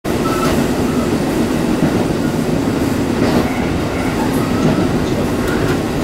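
Diesel railcar running along the line, heard from inside the cab: a steady low rumble of engine and wheels on rail, with a few faint clicks from the track.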